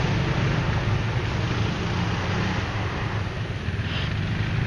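ATV (quad bike) engine running steadily at low speed through a flooded, muddy track, with a rough rushing noise of wind and wheels over it; the engine eases slightly around the middle.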